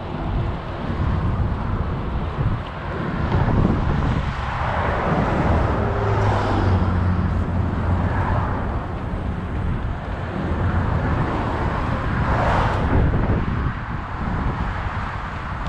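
Road traffic going by with wind buffeting the microphone: a steady engine hum, and two vehicles passing with a swell of tyre and engine noise, about six seconds and twelve seconds in.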